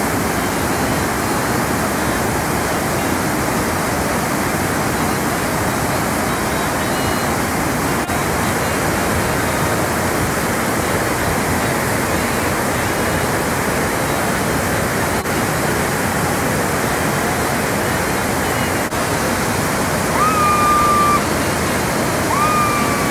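Nyangombe Falls' water cascading over rocks, a loud steady rushing. Near the end, two short whistle-like notes about two seconds apart.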